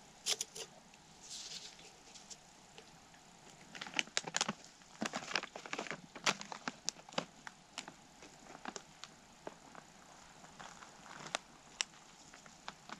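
Crinkling and rustling of a foil backpacking meal pouch being handled, mixed with sharp clicks and knocks of a small camp cooking pot, in scattered bursts with a busier stretch in the middle.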